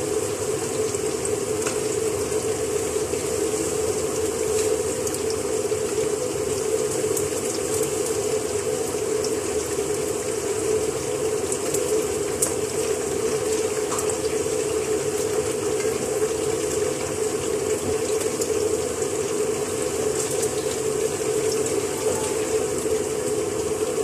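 Onions frying in oil in a cooking pot, a steady sizzle with faint crackles, over a constant even hum.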